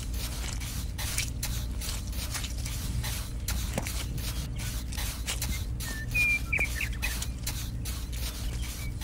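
Miniature trowel scraping and smoothing wet cement, a run of short strokes several times a second over a steady low hum. A few short, high, whistle-like chirps about six to seven seconds in.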